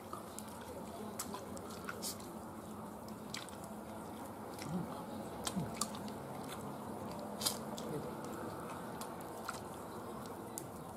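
Someone eating: quiet chewing and scattered small clicks and taps as roasted chicken and shrimp are handled with plastic-gloved fingers, over a steady low background noise. The sharpest click comes about seven and a half seconds in.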